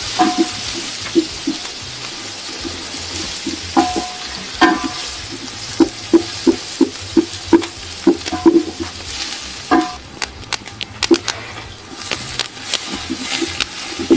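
Onions being browned in hot oil in a pan, sizzling, while a spoon stirs them with repeated knocks and scrapes against the pan and the odd ringing clink. The sizzle dies down about ten seconds in, leaving sharper taps.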